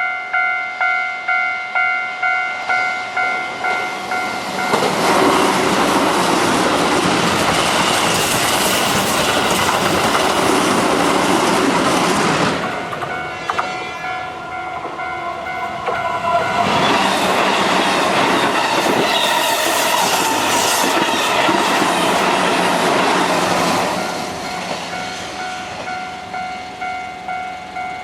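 Japanese level-crossing bell ringing its electronic clang about twice a second while two Keihan electric trains rumble over the crossing one after the other. The first train, a Keihan 8000 series limited express, passes from about four seconds in to about twelve. The second passes from about seventeen seconds to twenty-four, with the bell heard alone before, between and after them.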